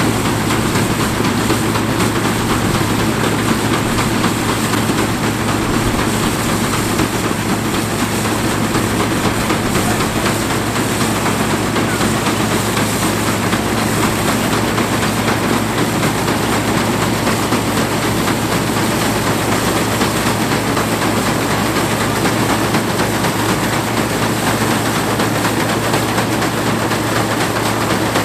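Fordson tractor engine running steadily under load while it draws a trailed combine harvester, whose cutting and threshing works clatter continuously as it harvests wheat.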